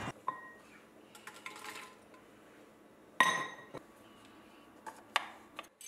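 Light clinks of a glass straw against a glass Mason jar, then scattered small taps and one loud, ringing clink of hard kitchenware about three seconds in, with a few lighter clicks near the end.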